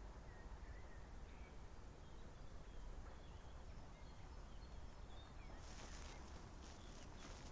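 Faint outdoor ambience: a low steady rumble with scattered faint bird chirps. About three-quarters of the way through, a soft high hiss sets in.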